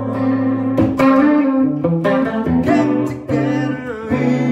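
Strat-style electric guitar played through an amp: a run of single notes and chords, changing about every half second.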